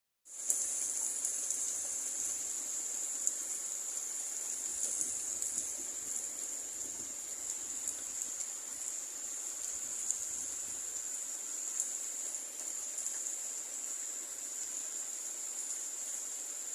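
Steady rain falling, a constant hiss with occasional light ticks of drops, under a steady high-pitched whir that is the loudest part of the sound.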